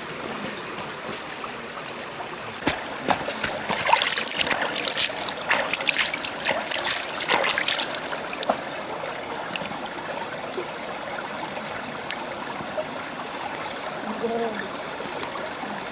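Stream water running steadily, with a cluster of louder splashes and sharp knocks about three to eight seconds in.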